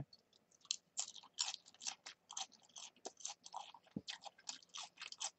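A person quietly chewing a mouthful of food close to the microphone: a quick, irregular run of short crunchy, smacking chews, about three or four a second.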